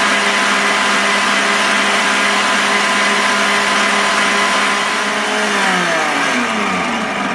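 Electric stand mixer running at speed, its flat beater creaming shortening and sugar in a steel bowl with a steady motor hum. About five seconds in, the motor winds down and its hum falls in pitch.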